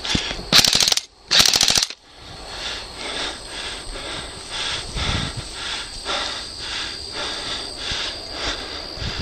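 Airsoft gun firing two short full-auto bursts in quick succession, each about half a second of rapid clattering shots, followed by quieter, regular ticking.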